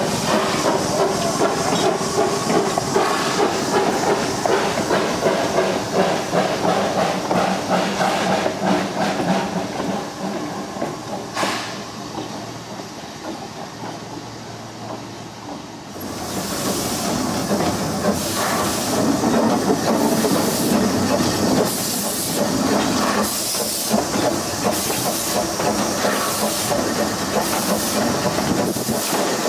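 Baldwin steam locomotive (Hawaii Railway No. 5) running along the track, with a steady hiss of steam and rhythmic exhaust chuffs. It is quieter for a few seconds in the middle, then comes back louder with sharp chuffs about once a second.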